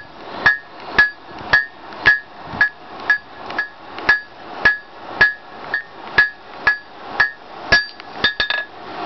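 Blacksmith's hammer striking hot 1/2-inch mild steel on an anvil, a steady blow about every half second, each with a short metallic ring. Near the end comes a quick run of lighter taps.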